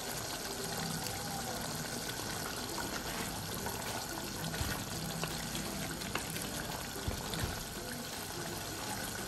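Chicken liver and heart masala bubbling steadily in a pan, with small crackles, as the cooking liquid boils down to a dry roast.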